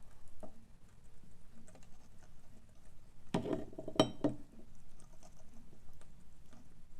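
A parrot working at a walnut shell with its beak: scattered small clicks and scrapes, then a cluster of loud cracks and clinks a little past halfway. The sharpest crack comes about four seconds in.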